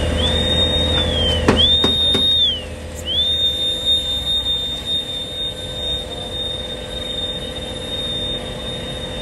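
A high-pitched whistling tone dips sharply in pitch a few times, then holds steady. Under it is the steady rush of a fire hose spraying water into the blaze, with a low rumble that fades about two and a half seconds in.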